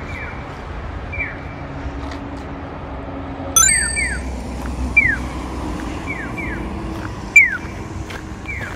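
Street sound: a steady low vehicle engine hum, with pairs of short falling electronic chirps repeating about once a second. Three sharp clicks stand out, with brief high ringing, about a third of the way in, at the middle, and near the end.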